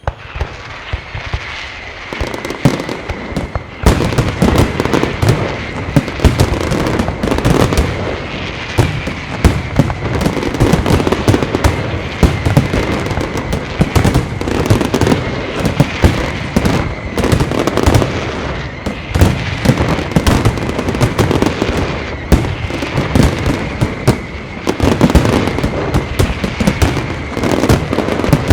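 Aerial fireworks show: a dense, continuous barrage of shell bursts and sharp bangs. It starts abruptly and builds to full loudness within about four seconds.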